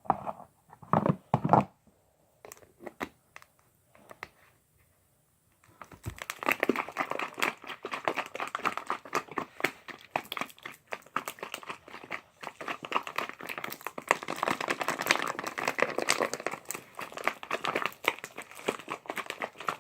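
A few knocks, then from about six seconds in a continuous crinkling and crackling of a thin plastic bottle being squeezed and shaken to mix glue and liquid slime activator inside it.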